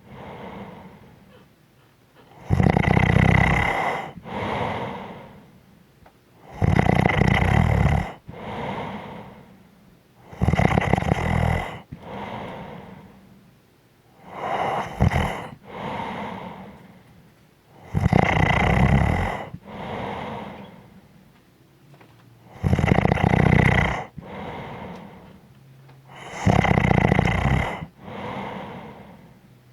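A person snoring steadily in a slow, even rhythm: a loud, rumbling snore about every four seconds, each followed by a softer, breathy exhale.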